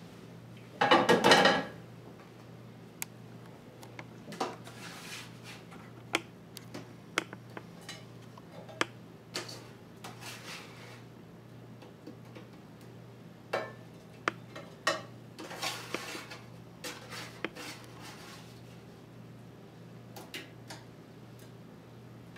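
Metal kitchen tongs clinking and scraping against a metal baking sheet and a ceramic baking dish as broiled asparagus is moved across: a loose series of light clicks and scrapes, with a louder clatter about a second in. A steady low hum runs underneath.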